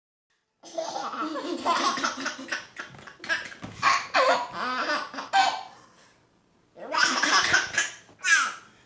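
A young child's loud, high-pitched laughing squeals in repeated bursts, breaking off for a moment about six seconds in before starting again.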